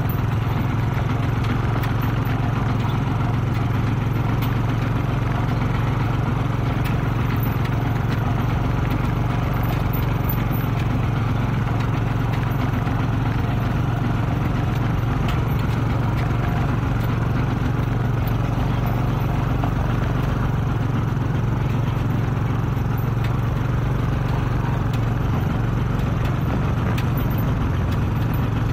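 Kubota RT-120 Plus single-cylinder diesel tractor engine running steadily under load as it hauls a loaded trailer, a constant low drone with light rattling.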